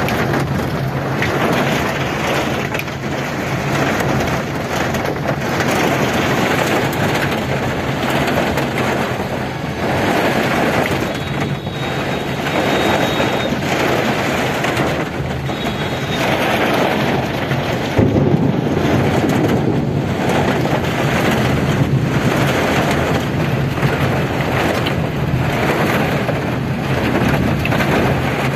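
Heavy rain drumming on a vehicle's roof and windows, heard from inside the cabin over the low hum of the moving vehicle. The downpour is steady, with a brief surge in loudness past the middle.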